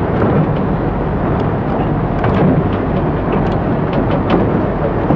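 Sentinel 0-6-0 diesel shunter's engine running under load close by, with a steady low rumble of the slowly moving train and scattered light clicks and rattles.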